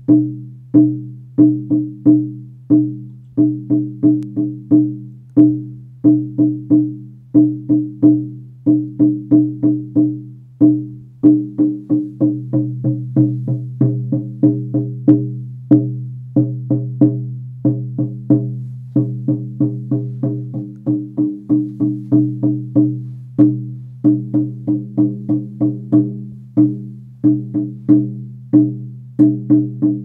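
16-inch elk-hide frame drum on a maple frame, struck with a padded sound-healing beater in a steady rhythm of about three strokes a second. Each stroke rings on in a low, sustained tone, so the drum hums continuously under the beats.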